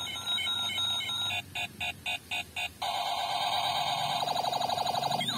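Battery-powered Captain America toy pistol playing its electronic gun sound effects: a run of beeps, then rapid pulsing beeps, then from about three seconds in a continuous fast-warbling electronic rattle.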